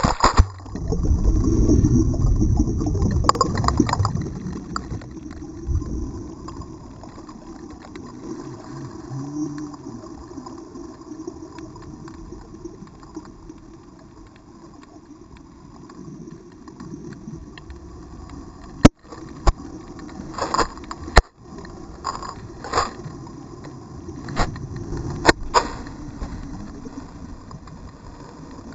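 Underwater sound heard through a GoPro's waterproof housing: a loud churn of water and bubbles for the first few seconds as it plunges into the sea, settling into a steady low underwater rumble. From about two-thirds of the way in come scattered sharp clicks and knocks as the loose camera rolls and bumps along the sea floor.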